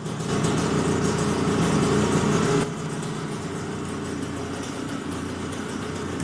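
Single-cylinder two-stroke engine of a freshly restored 1974 ČZ 175 Trail motorcycle idling steadily. It becomes a little quieter about two and a half seconds in.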